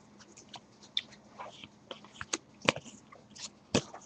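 Baseball trading cards being handled and flipped through: scattered light clicks and snaps, with two sharper snaps a little past halfway and near the end.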